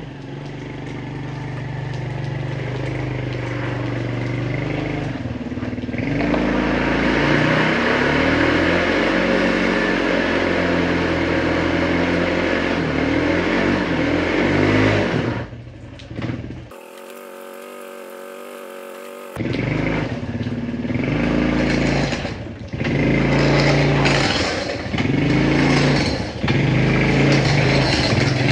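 Suzuki ATV engine running as the quad approaches, growing louder over the first few seconds, then revving up and down in short pulls as it manoeuvres in towing a mower. For a couple of seconds about two-thirds through the engine sound drops well down.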